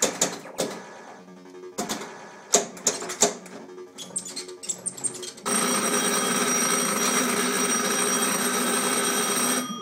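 Williams Sorcerer pinball machine in play: sharp clacks and knocks of the ball, flippers and solenoids mixed with electronic game sounds for the first five seconds or so. Then comes a loud steady electronic hiss with held tones, lasting about four seconds, which cuts off abruptly just before the end.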